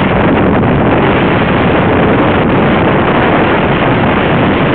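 Loud, steady rush of wind buffeting the microphone, mixed with the road noise of a moving car.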